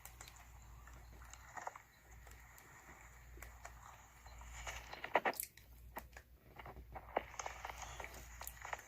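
Komodo dragons feeding: wet tearing, crunching and chewing, with scattered sharp cracks and snaps, the loudest about five seconds in.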